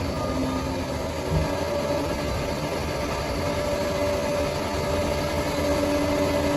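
Bulldozer's diesel engine running steadily, with a brief knock about a second and a half in.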